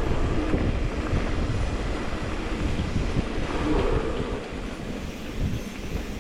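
Wind buffeting the microphone over the rattle and rumble of a mountain bike rolling along a dirt trail, easing off near the end.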